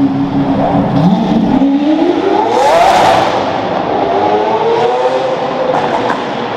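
Lamborghini Aventador S V12, straight-piped with a Capristo exhaust, accelerating hard away. The revs climb steeply for about a second and a half, drop at an upshift, then climb again more gently.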